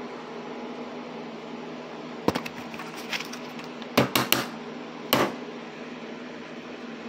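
A handful of sharp clicks and taps from handling an object, loudest in a quick group of three about four seconds in and one more a second later, over a steady background hum.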